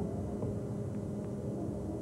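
Pause in speech: a steady low hum and hiss of background room tone, with a few faint ticks.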